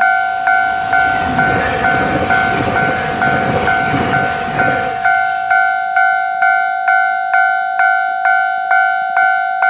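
A Japanese level-crossing warning bell rings steadily, about three strikes a second, as a JR Hokkaido 789-series limited express train passes. The train's running noise swells up under the bell about a second in and fades out about five seconds in.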